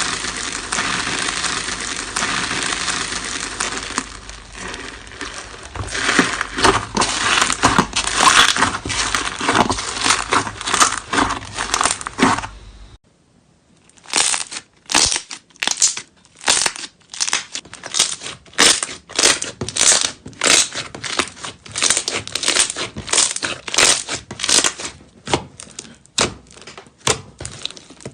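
Slime being squeezed and worked by hand, giving dense crackling and crinkling for about the first half. After a short break it turns to separate squishes and pops, roughly two a second.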